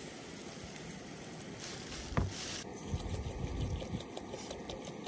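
Water poured from a plastic bottle into an aluminium pot of rice, with wind buffeting the microphone. There is a single knock about two seconds in, and many small ticks and taps from about halfway through.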